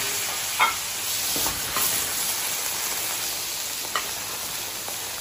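Soy sauce sizzling in the hot oil of a wok of fried tofu and quail eggs, a steady hiss. Through it come about four sharp metal clinks of the ladle against the wok as the contents are stirred.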